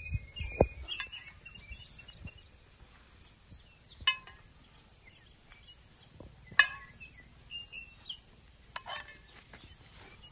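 Small birds chirping and twittering in quick, short notes, with a few sharp clinks, the loudest about six and a half seconds in.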